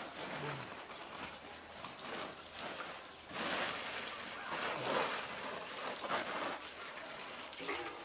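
Water sprinkling from a metal watering can's rose onto leafy cabbage and lettuce plants, louder from about three seconds in.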